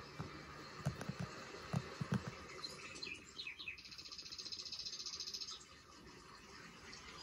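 Small bird chirping: a few short falling chirps, then a fast, even trill lasting about a second and a half. A few soft, low thumps come in the first two seconds.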